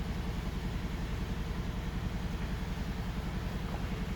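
Steady low mechanical rumble, pulsing quickly, with no distinct events.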